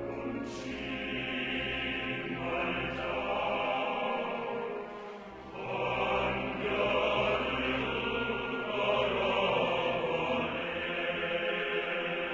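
Choral music: a choir singing in long held notes.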